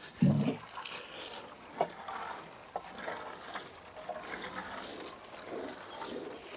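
Water sprinkling and trickling onto compost as freshly sown carrot seed is watered in, an uneven splashing hiss. A loud thump comes just after the start, with a few small knocks later.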